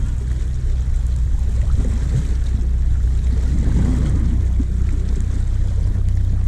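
Wind buffeting the microphone with a steady low rumble, over small waves lapping and washing against shore rocks.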